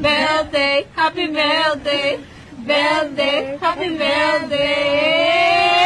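Singing voices carrying a melody in bending phrases, with short breaks about a second and two seconds in, then settling into a long held note.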